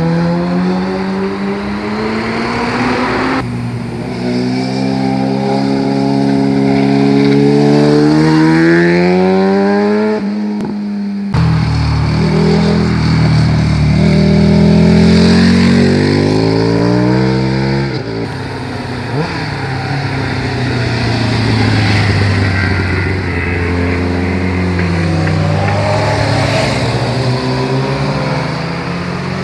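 Sport motorcycle engines passing one after another through a hairpin bend, each engine's pitch rising as it accelerates out of the curve, with abrupt cuts between passes.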